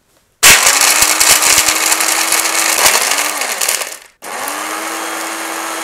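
Small portable shaker-bottle blender crushing Mentos mints into powder. It starts about half a second in with a loud motor hum and a rattle of the mints hitting the blades, stops about four seconds in, then runs again quieter and steadier with no rattle.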